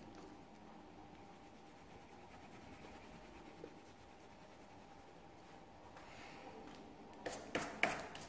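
Coloured pencil shading on paper, a faint scratching rub. Near the end come three or four sharp taps in quick succession.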